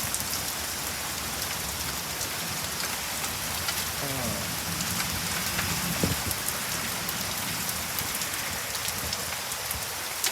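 Rain and hail falling: a steady hiss of rain with many small sharp ticks of hailstones striking surfaces.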